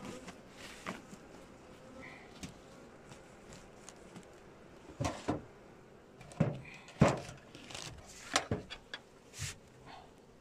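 Metal-clad beehive lid being lowered onto the hive over a woven sack cover and pushed into place: a few knocks and scrapes in the second half, the loudest about seven seconds in.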